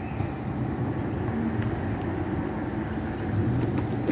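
A steady low rumble of a vehicle engine running nearby, with a few faint ticks.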